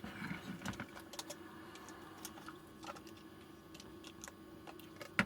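Scattered light clicks and taps of small parts being handled and fitted, with one sharper click near the end.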